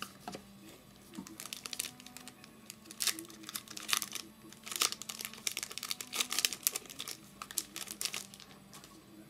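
Trading-card pack wrapper being torn open and crumpled by hand: a run of irregular crackling rustles, starting about a second and a half in and stopping shortly before the end.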